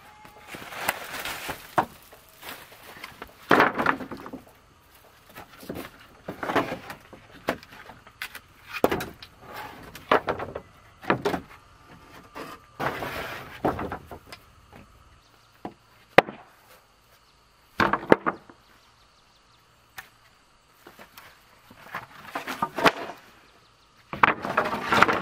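Sawn wooden planks being dragged off a stack and set down, with scraping slides and sharp wooden knocks every second or two.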